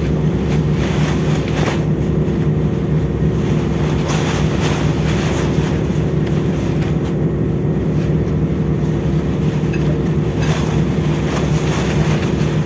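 Steady low drone of a ship's engines and machinery, holding a constant pitch, with a few brief hissy gusts of wind noise.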